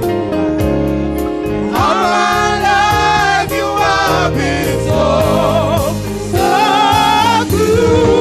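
Gospel music with a singer or choir over a steady instrumental backing and beat.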